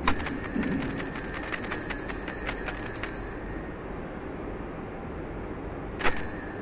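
Altar bells shaken in rapid strokes for about three seconds as the consecrated host is elevated at Mass, then ringing away. They are rung again briefly near the end.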